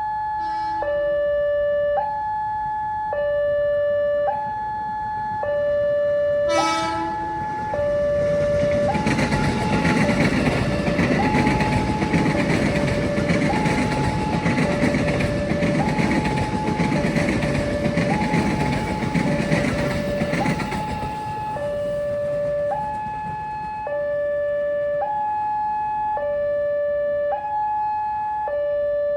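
A railway level-crossing warning alarm sounds a loud two-tone siren, swapping between a higher and a lower tone about once a second. A brief sharp blast comes about six seconds in. Then a train passes with a loud rushing rumble for about thirteen seconds while the alarm keeps sounding, and the rumble dies away near the end.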